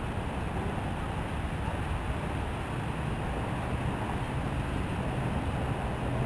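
Steady low outdoor rumble with no distinct knocks, scrapes or voices standing out.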